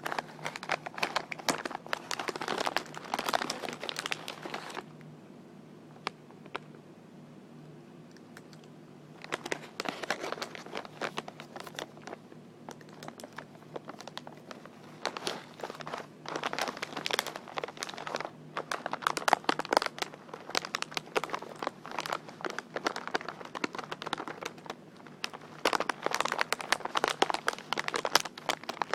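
Crinkly material being crinkled and tapped in dense crackling runs, with a pause of a few seconds early on before the crinkling resumes and carries on.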